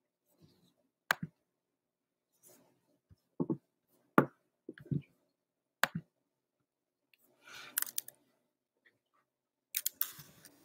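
Scattered sharp clicks and softer knocks from things being handled at a desk, with a short rustle about eight seconds in and another near the end.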